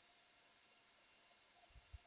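Near silence: faint steady hiss, with two faint low thumps close together near the end.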